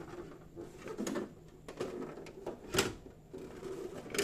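A loose hard drive clunking inside a Dell Vostro 3668 desktop case as the case is handled: several separate knocks, the loudest a little past the middle. The drive has come off its mounting inside the case.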